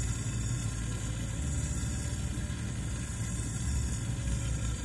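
Glassworking bench torch flame burning steadily while glass is reheated in it: a continuous low rushing noise with a rumble underneath.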